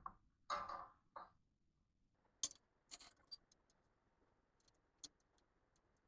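Faint, scattered clicks and ticks of a screw being driven by hand with a small Phillips-head driver into a dish rack's frame.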